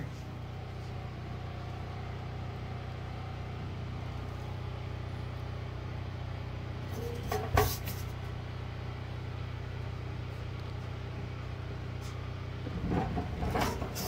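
Steady low mechanical hum, like a motor or engine running, with a single knock about halfway through.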